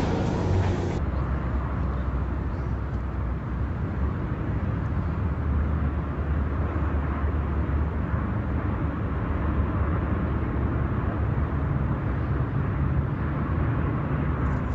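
Steady low engine rumble with an even hiss, from the aircraft the aerial shots are filmed from. A different sound with steady tones cuts off about a second in.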